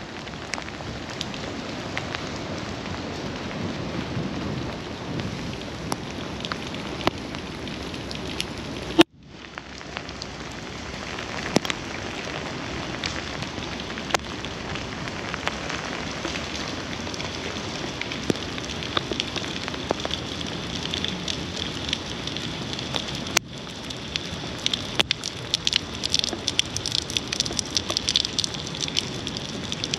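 Steady rain falling, with many sharp ticks of drops striking close by that grow thicker near the end. The sound cuts out briefly twice.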